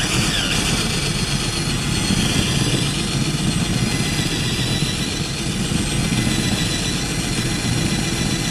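Cordless drill running steadily at full speed, its bit boring a recess for a carriage bolt head into a rubber foot.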